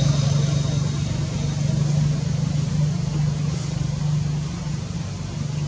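Steady low hum of a running engine, unchanging in pitch, over a faint hiss.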